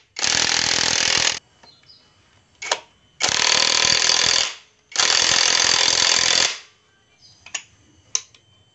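Impact wrench hammering nuts tight during engine assembly: three runs of about a second and a half each, with a brief blip of the trigger between the first two.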